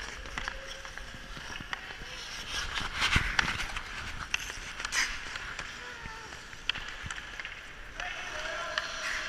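Ice skate blades scraping and carving on rink ice, with sharp clicks of hockey sticks on the puck and louder scrapes about three and five seconds in. Faint distant voices underneath.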